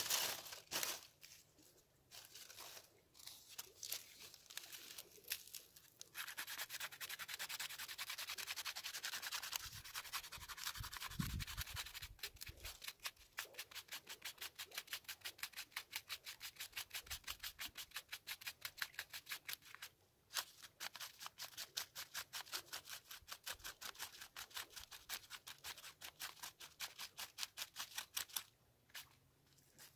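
Knife scraping birch bark into fine tinder: a scraping hiss, then rapid repeated strokes at about five a second through most of the rest, stopping shortly before the end.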